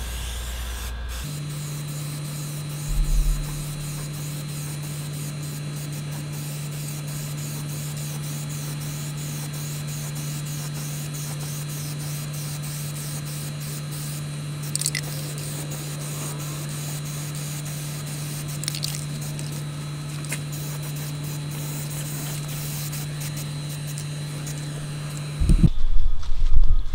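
Aerosol spray-paint can hissing steadily as a heavy wet coat of semi-gloss black is laid on sheet-metal engine tin. In the last second or so it gives way to louder rustling and knocking.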